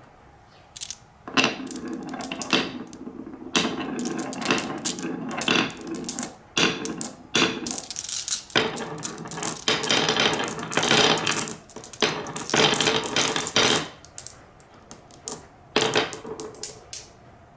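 Marbles rolling down a wavy marble run track, rattling and clicking against the track and each other in repeated bursts. It starts about a second in and thins out to scattered clicks near the end.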